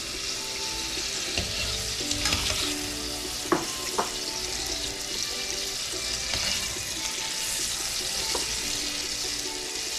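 Shrimp sizzling steadily in a little hot oil in a metal pot, with a metal slotted spoon scraping and clinking against the pot as they are lifted out; two sharp clinks stand out about three and a half and four seconds in.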